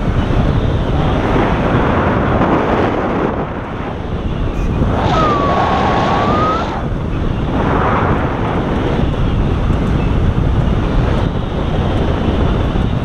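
Wind rushing hard over the microphone of a tandem hang glider in flight. About five seconds in, a brief tone dips and rises again over the rush.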